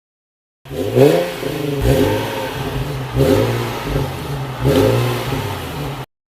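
Supercar engine revving in four blips, each rising in pitch and falling back, starting just under a second in and cutting off abruptly near the end.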